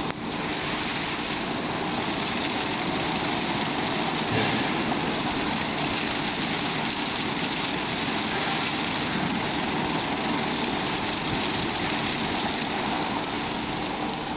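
CF-340 rollover car wash machine running: its rotating brushes scrub a car with a steady rushing noise under a faint motor hum.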